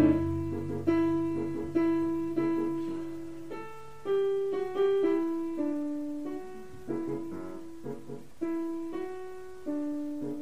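Background music: a solo piano plays a slow melody of single notes, each struck and left to ring and fade. A low held chord dies away near the start.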